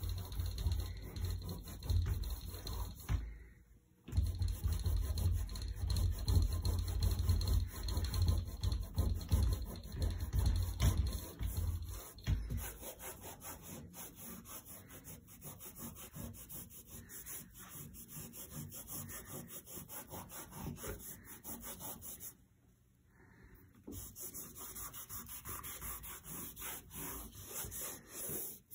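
Damp microfibre cleaning cloth (Norwex EnviroCloth) rubbing in continuous back-and-forth wiping strokes on a painted door frame. The strokes are loud and deep for the first twelve seconds or so, then lighter, with two short breaks.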